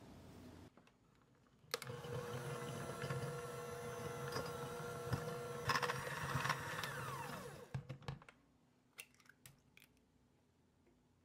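Electric mixer starting with a click about two seconds in and running steadily with a whine, its beaters creaming butter and sugar in a glass bowl. Near eight seconds it winds down with a falling pitch, and a few light clicks follow.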